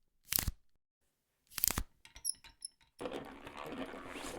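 Foley sound effects: two sharp knocks about a second and a half apart, then a few small clicks with high metallic tings, and a rustling, clattering noise through the last second and a half.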